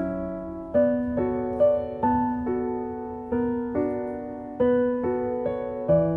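Background music: a piano piece, with notes and chords struck about twice a second, each one fading before the next.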